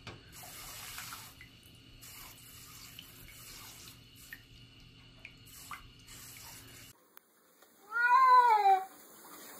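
Water trickling and splashing in a bathtub, then about eight seconds in a wet cat being washed under a running kitchen tap gives one long, loud meow that rises and then falls in pitch.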